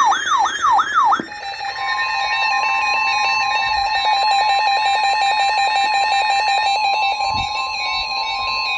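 Emergency Alert System attention tones. About a second of four quickly falling electronic sweeps, then a steady high alert tone with a fast-pulsing lower tone and stepping higher tones over it, signalling that a warning broadcast is about to follow.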